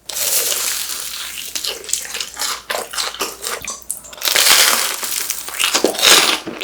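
Loud crunching of crisp, fried snack food being bitten and chewed close to the microphone, in several long spells with short cracks between them.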